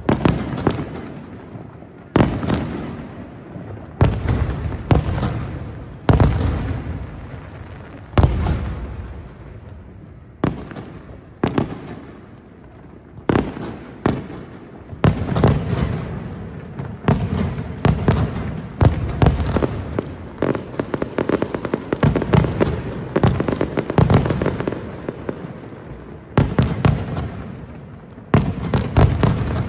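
Aerial firework shells bursting one after another, a sharp bang about every two seconds at first, then coming faster with clusters of rapid crackling pops. Each bang trails off in a rolling echo.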